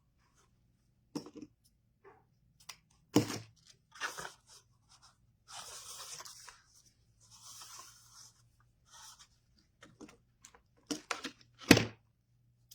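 Ribbon being handled and looped by hand: short rustles of the ribbon with scattered sharp taps and clicks, the loudest tap near the end.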